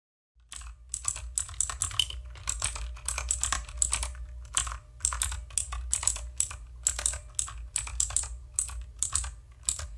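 Typing sound effect: a quick, uneven run of key clicks over a steady low hum, starting about half a second in.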